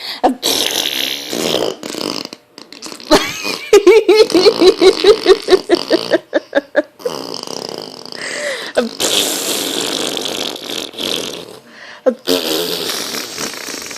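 A boy making fart noises with his mouth, blowing wet raspberries through his lips: several long sputtering blows, with a quick run of short buzzing pulses in the middle.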